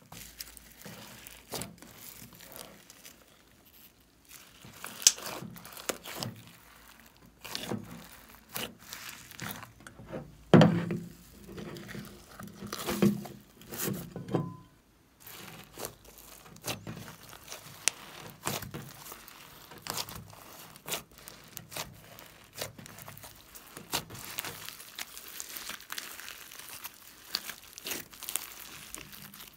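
Hands squeezing and kneading glossy slime mixed with foam beads and sprinkles, giving irregular sticky crackles, clicks and squelches. The loudest squelches come around the middle, followed by a brief pause.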